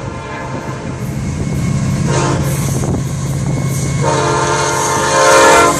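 Florida East Coast Railway diesel freight locomotive sounding its horn as it approaches a grade crossing: a short blast about two seconds in, then a long blast from about four seconds in, over the steady drone of the engine.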